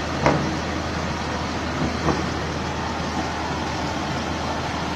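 Dodge 600 truck engine running with a steady rumble, with two brief louder blips, one just after the start and one about two seconds in.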